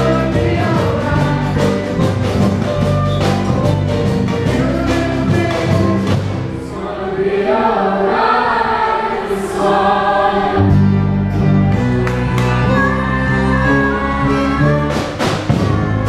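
Live band music with large samba bass drums beating steadily under a group of voices singing together. About six and a half seconds in, the drums and bass drop out for a few seconds, leaving mainly the singing. Then the whole band comes back in.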